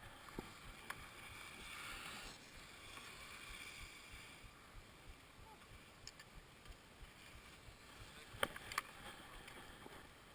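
Faint hiss of skis sliding over groomed snow, fading out about four seconds in as the skier glides to a stop. Two sharp clicks come near the end.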